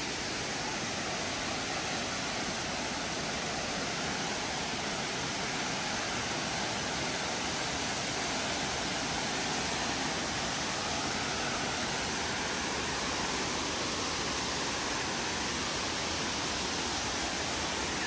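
Small stepped waterfall running: a steady rush of water cascading over rock.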